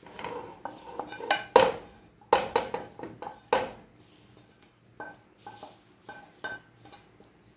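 A serving utensil knocking and scraping against a frying pan and a stainless steel pot while minced meat is spooned onto rice: a string of clinks and knocks, loudest and most frequent in the first half, several ringing briefly.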